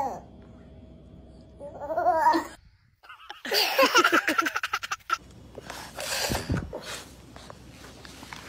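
Young children laughing: a short giggle about two seconds in, then after a brief gap a loud fit of laughter with quick repeated ha-ha's, fading to quieter sounds.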